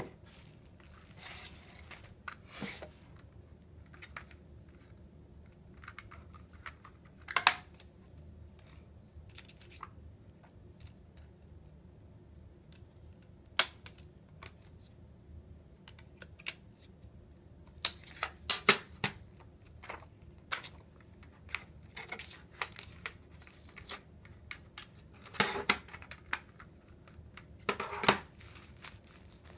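Scattered clicks, taps and light rustles from hands handling cardboard packaging and a plastic CD jewel case on a wooden table. Short quiet stretches come between them.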